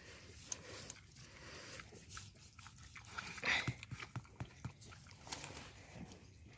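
Pig chewing and snuffling close by: faint scattered crunching clicks, with one short breathy snuffle about three and a half seconds in.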